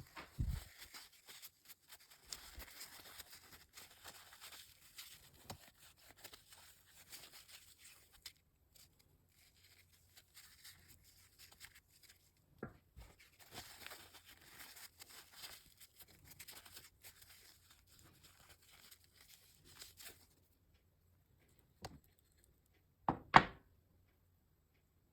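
Irregular scraping and rustling by hand, with scattered light clicks, in two stretches, then two loud knocks near the end.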